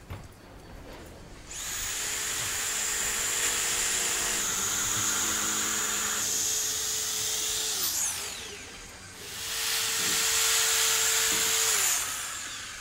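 A handheld electric knife cutting through upholstery foam. Its motor runs for about six seconds, winds down with a falling whine, then runs again for about three seconds before winding down again.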